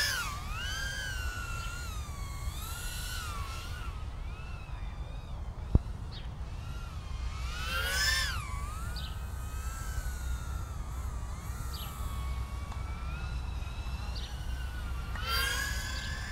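BetaFPV Meteor75 brushless whoop drone in flight, its motors and props whining at a high pitch that rises and falls with the throttle. The whine is loudest as it swoops close about eight seconds in and again near the end. A single sharp click a little under six seconds in, over a steady low rumble.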